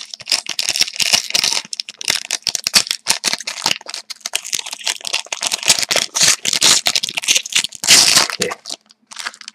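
Foil wrapper of a hockey card pack crinkling and tearing as it is opened by hand, with the cards rustling as they are pulled out. Dense crackle, loudest near the end.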